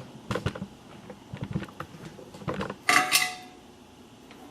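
A series of light clicks and metallic clinks, as of small metal objects being handled and set down, with a louder clatter about three seconds in.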